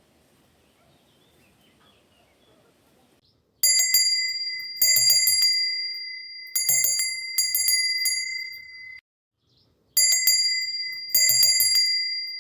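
Faint low rustling, then, about three and a half seconds in, a bright bell rings in repeated strikes. The strikes come mostly in pairs about a second apart, each ringing on and fading, with a brief silent gap before the last pair.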